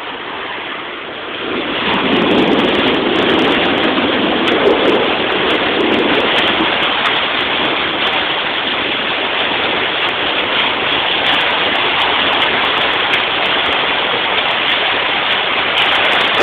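Heavy rain and hail coming down hard, a dense steady hiss that swells about two seconds in, with scattered sharp ticks.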